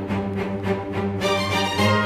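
Instrumental background music with sustained tones over a steady bass.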